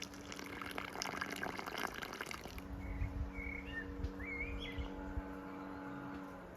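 Small birds chirping a few times over a steady low hum. For the first two seconds or so there is a dense crackling, splashing noise, like liquid.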